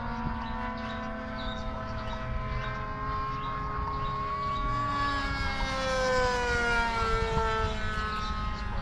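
Remote-control model jet flying past: a high, many-toned whine that grows louder and then slides down in pitch from about five seconds in as the plane goes by.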